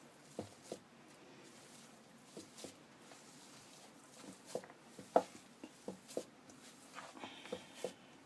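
Mashed potato filling being mixed with salt and spices in a bowl: faint, irregular soft knocks and clicks against the bowl, the sharpest a little past halfway and a quick cluster near the end.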